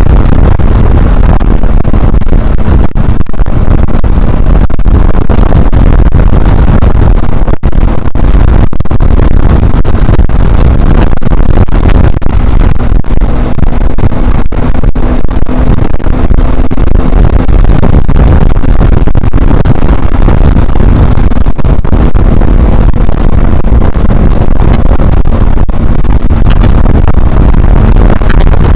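Loud, steady wind rush on a motorcycle-mounted action camera's microphone at riding speed, with a Honda CBR125R's single-cylinder four-stroke engine running underneath.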